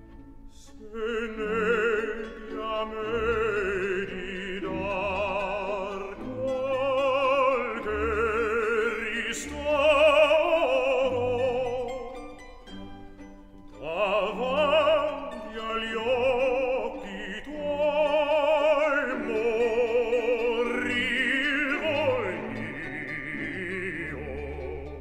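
Background music: a classical operatic singing voice with wide vibrato over orchestral accompaniment.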